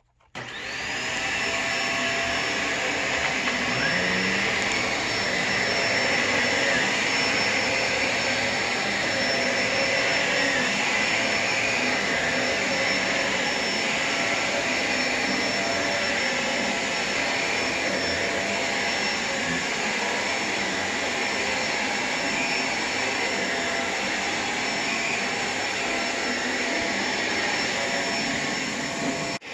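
Shark Rotator Pet Plus upright vacuum cleaner switching on. Its motor spins up to a steady high whine within the first second, then runs steadily.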